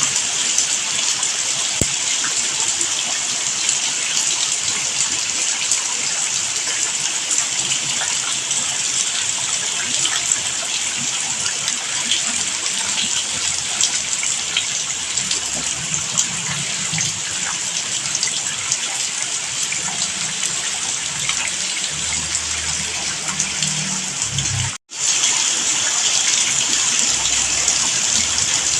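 Steady heavy rain, a dense, even hiss of falling water. It cuts out for an instant about 25 seconds in, then carries on.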